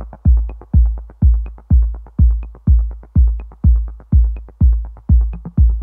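Electronic background music with a steady, deep kick drum beat about twice a second.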